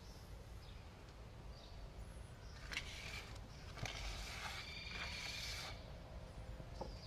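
A homemade paintbrush of green sprigs scratching and swishing over cardboard as mud paint is brushed on, starting about three seconds in and lasting a couple of seconds, with a few faint bird chirps.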